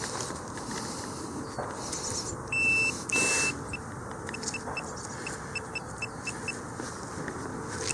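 Metal detector beeping as it is passed over a target in the dug-out soil plug: two longer high tones about two and a half seconds in, then a run of short, uneven beeps.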